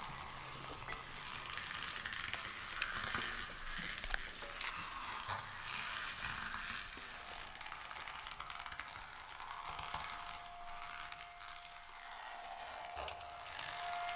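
Live electronics in a contemporary piece for mezzo-soprano and electronics: a dense, high-pitched texture of fine crackles and clicks. About ten seconds in, a single steady high tone comes in and holds.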